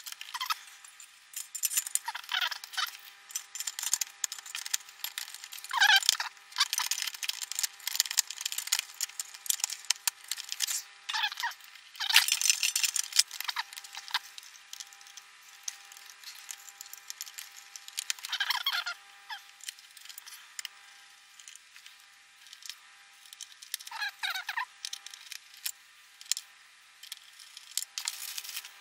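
Work sounds of reassembling an opened LCD monitor, sped up eight times: screwdriver, screws and a sheet-metal shield being handled, turned into rapid high-pitched clicks and rattles with a few short chirps.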